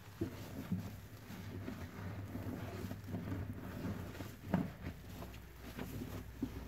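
Soapy, foam-laden sponges being squeezed and pressed by hand, giving irregular wet squelches and foam crackling, with the loudest squish about four and a half seconds in.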